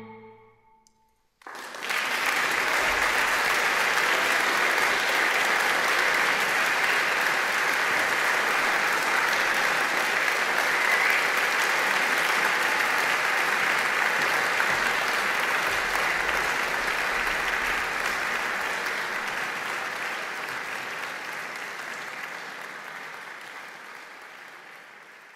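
The last marimba notes ring away, then after a brief silence an audience breaks into applause about a second and a half in; the clapping stays steady and slowly fades out near the end.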